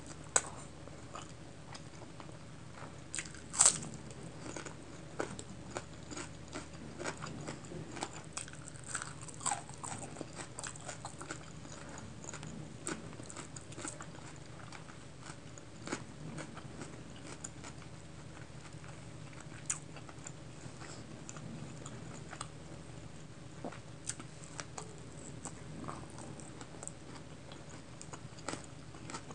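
Close-miked chewing and wet mouth sounds of someone eating pulao rice and chicken curry by hand, with many short sharp smacks and clicks; the loudest snap comes a little over three seconds in.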